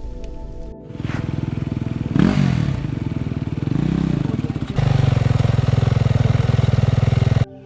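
An engine starting about a second in and running with a fast pulsing beat, revved up and down twice, then held louder at a steady higher speed before cutting off suddenly near the end.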